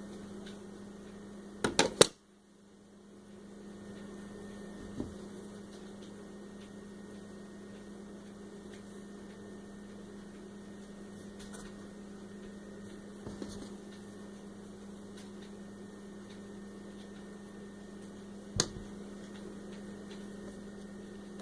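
Steady electrical hum, with a few short clicks, the sharpest about two seconds in and again near the end.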